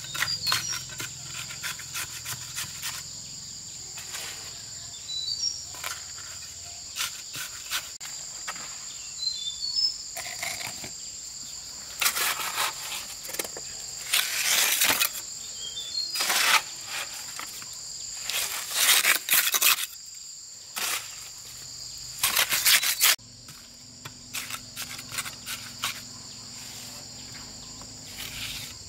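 A steady, high-pitched chorus of insects, with repeated scraping and knocking from nearby work over it. The knocks and scrapes come loudest in several clusters past the middle.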